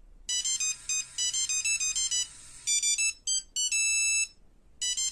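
A bright, high-pitched ringtone-style electronic melody of quick short notes, with a held chord about four seconds in and a brief break just after it before the notes resume.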